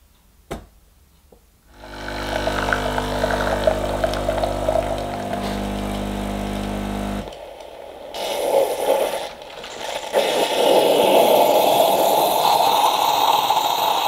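Bosch Tassimo My Way 2 pod coffee machine brewing a milk pod: a click, then its water pump hums steadily for about five seconds, then a louder hissing rush as the milk drink streams into the glass for the rest of the time.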